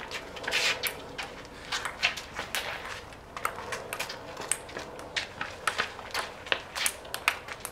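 Ping-pong rally: irregular sharp clicks, several a second, of paddles striking the celluloid ball and the ball bouncing on the table top and the concrete driveway, mixed with the players' sneakers scuffing on the concrete as they run.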